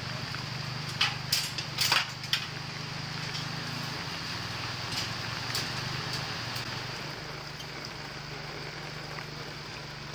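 Rubble being shifted by hand, giving a quick run of sharp clinks and knocks about a second in and a few fainter ones later. A steady low machine hum runs under it.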